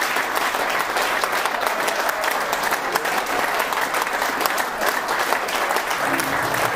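Audience applauding: steady, dense hand clapping.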